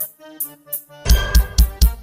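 Pentecostal worship band music: a keyboard plays alone with light cymbal ticks, then about a second in the drum kit and band come in with a fast, steady kick-drum beat of about four hits a second.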